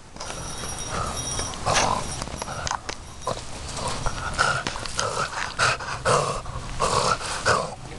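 A Cavalier King Charles spaniel making a series of short, repeated dog noises close to the microphone.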